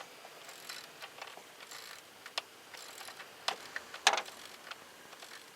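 Socket wrench ratcheting and clicking as the serpentine belt tensioner bolt is tightened, in scattered clicks and metal knocks, the loudest about four seconds in.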